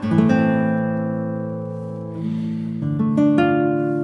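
Background music: acoustic guitar chords plucked and left to ring, with new chords about two and three seconds in.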